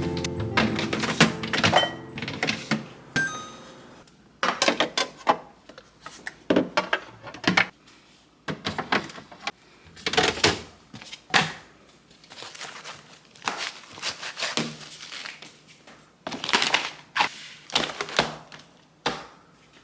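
Irregular clatter and knocks of kitchen items being handled and set down, in short clusters with brief pauses between.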